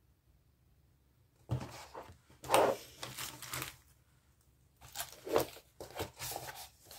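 Hands handling art supplies: two spells of rustling and clicking as plastic markers shift in a fabric pencil case and paper is moved. They start about a second and a half in, with a short pause in the middle.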